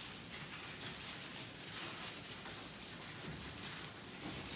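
Faint rustling and crinkling of paper wrapping being handled.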